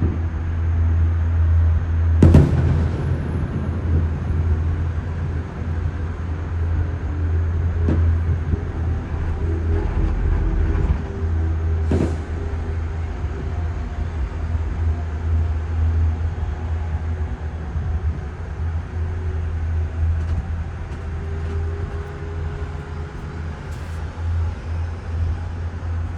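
Bus engine and road noise droning steadily inside the cabin, with a few sharp bangs: the loudest about two seconds in, others near the middle and near the end.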